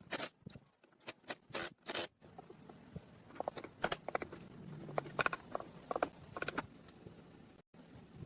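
Hand work on engine parts: short scrapes and clicks at irregular intervals, with a brief cut to silence near the end.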